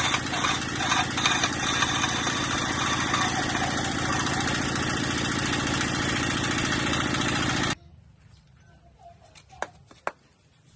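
Stationary single-cylinder diesel engine running steadily as it drives a wood lathe, with the rough scrape of a turning tool against the spinning log in the first couple of seconds. The engine sound cuts off abruptly about three-quarters of the way through, leaving quiet with two sharp clicks near the end.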